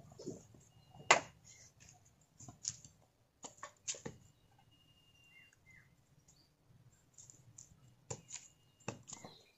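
Irregular sharp clicks and knocks, a dozen or so spread unevenly, with a faint thin high tone heard briefly a few times.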